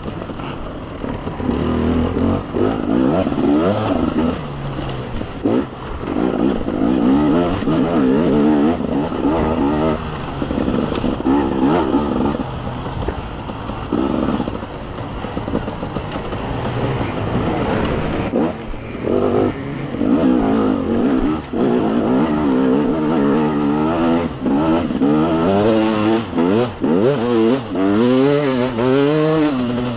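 KTM 250 EXC two-stroke enduro engine at race pace, heard from on the bike, its pitch climbing and falling again and again as the throttle opens and shuts through the gears, with a few brief drops when the throttle is chopped.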